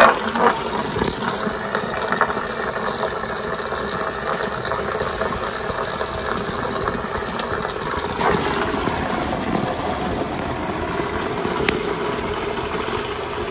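Engine coolant draining from the underfloor coolant pipes of a Toyota MR-S, pouring in streams into a pan below as a steady splashing, with a constant mechanical hum under it.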